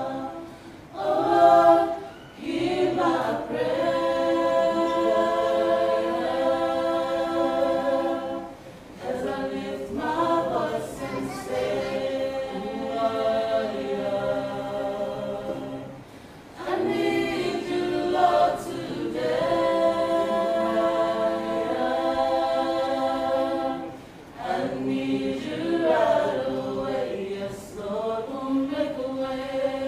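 A choir singing unaccompanied, in long held phrases with a short break about every eight seconds.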